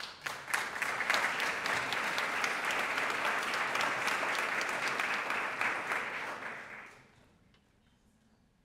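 Audience applauding, the clapping fading out about seven seconds in.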